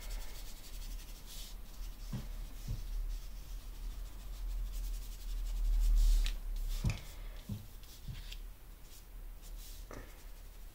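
Foam ink-blending tool rubbing ink onto a paper planner page in short scratchy strokes, with a few soft knocks of the tool and hands on the desk.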